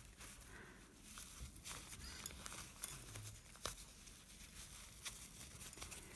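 Faint rustle of cotton fabric being handled and turned right side out, with a few small ticks and taps scattered through.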